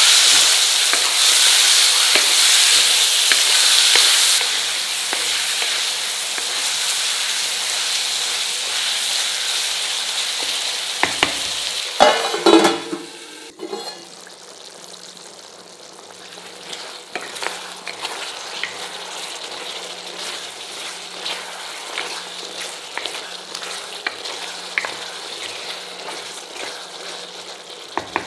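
Chicken pieces sizzling loudly in hot oil with fried onions in a stone pot, stirred with a spatula. The sizzle eases, and about halfway a few loud knocks come as the pot's lid is handled. After that the chicken cooks in its juices with a quieter sizzle and occasional small spatula clicks.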